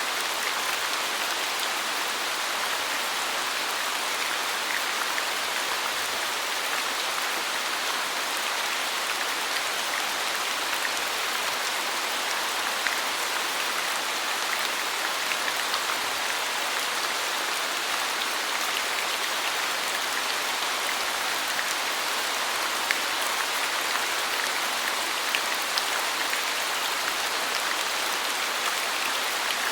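Steady rain falling, an even hiss with scattered drops pattering.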